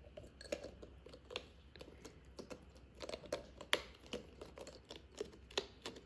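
Silicone stretch lid being pulled over and pressed onto a bowl's rim by hand: faint rubbing and many small clicks and scrapes.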